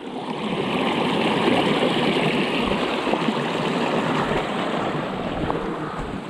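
Steady rushing noise of bikes rolling fast down a gravel trail, with tyres running over stones and wind on the microphone, and a few small clicks.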